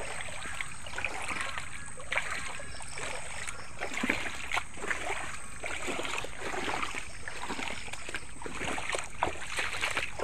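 Footsteps in boots wading and splashing through shallow floodwater, an irregular run of sloshing steps about one or two a second.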